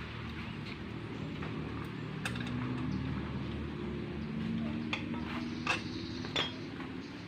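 A few sharp metal clicks and clinks of hand tools and parts being handled on a dirt bike's engine, two louder ones near the end, over a steady low background hum.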